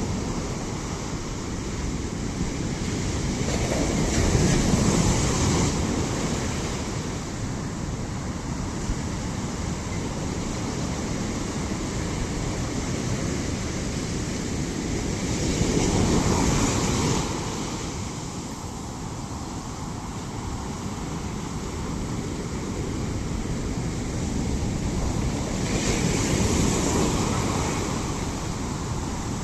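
Ocean waves breaking: a steady rush of surf that swells three times, about ten seconds apart.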